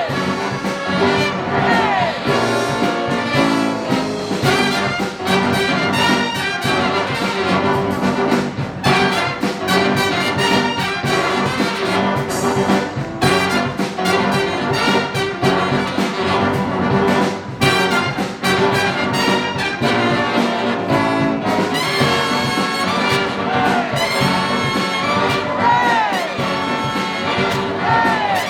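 Live big-band jazz with the full brass section, trumpets and trombones, playing loudly together over a steady rhythm, with a few notes sliding down in pitch near the start and again near the end.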